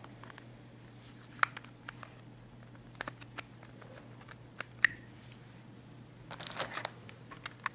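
Small scattered clicks and taps as a charger plug is worked into the side port of a Helio Ocean 2 slider phone and the phone is handled, with a brief rustle near the end.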